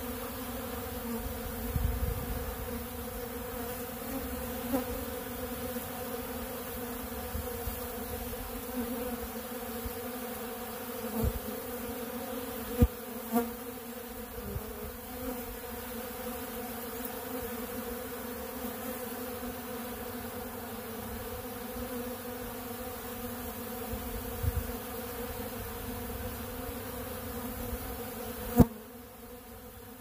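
Many honeybees buzzing as they fly around and feed at an open pollen feeder: a steady, even hum with a low drone and its overtones. A few sharp ticks stand out, the loudest near the end, after which the buzzing is a little quieter.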